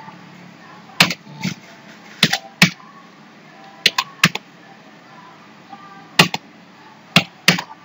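Computer keyboard keys being typed: about a dozen separate sharp clacks at irregular intervals, some in quick pairs, as figures are entered into a form.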